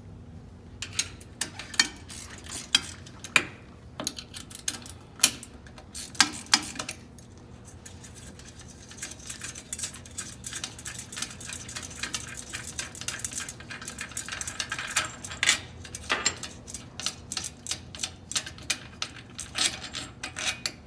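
Metal hardware and hand tools clinking: a wrench clicking against a nut and bolt on the steel mounting plate as they are worked loose and handled. Sharp metallic clicks, scattered at first and coming thick and fast from about nine seconds in.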